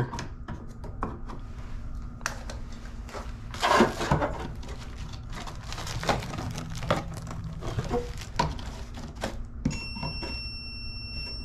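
Light clicks and knocks of tools being handled, then near the end a steady high-pitched beep from a voltage tester, its alert that it has found a live wire.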